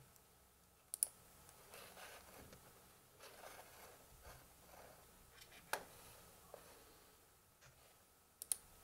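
Samsung Ativ Book 2 laptop being worked by hand: faint, scattered clicks of its controls, a sharp pair about a second in, single clicks near the middle and another pair near the end, with soft rubbing between them over quiet room tone.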